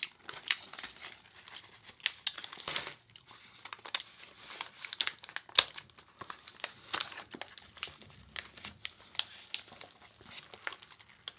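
Paper food wrapper crinkling and tearing as it is handled close to the microphone, a run of irregular sharp crackles.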